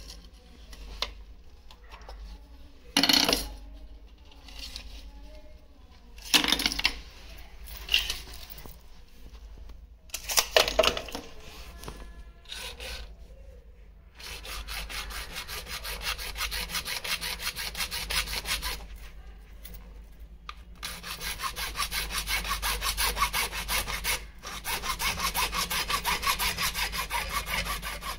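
A hand tool rasping back and forth on a pipe or fitting in quick, even strokes, in the manner of sawing or filing. A few separate knocks come first, the rasping starts about halfway in, and it breaks off briefly about two-thirds through.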